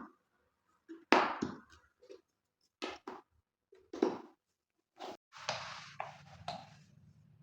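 Household cleaning handling noises: several separate knocks and clatters of objects being handled, then about two seconds of steady hissing over a low hum that fades near the end.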